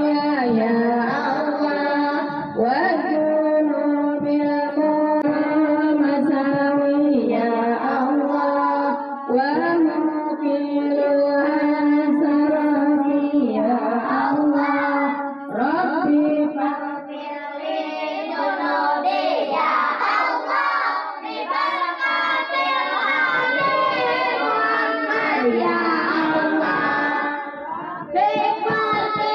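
Group of voices, children among them, singing an Islamic devotional chant (sholawat) together through a microphone. The long notes are drawn out with winding melodic turns.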